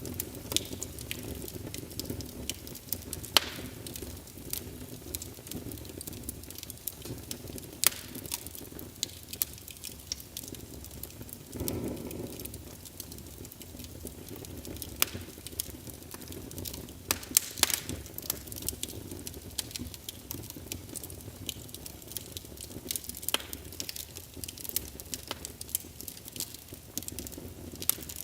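Wood fire in a fireplace crackling, with scattered sharp pops over a steady low rush of burning flames, and a brief swell of the low rush about twelve seconds in.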